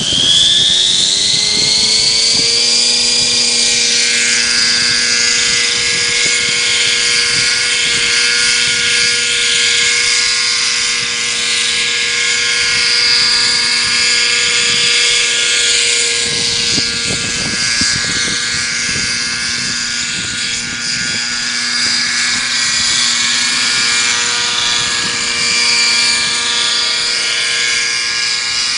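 Nitro-engined RC helicopter's glow engine and rotors running at high speed, with a high, buzzy whine. The engine climbs in pitch over the first couple of seconds as it spools up, then holds steady.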